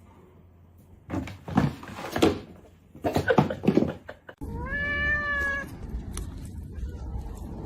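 A run of loud knocks and clatter, then one long cat meow that rises and then holds, over a steady background hum.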